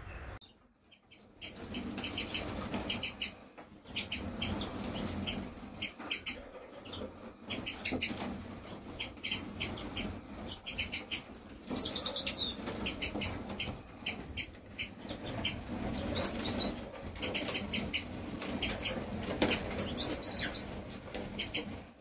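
A flock of domestic canaries in an aviary, chirping in short repeated bursts of calls over the fluttering of their wings, with one louder call about twelve seconds in.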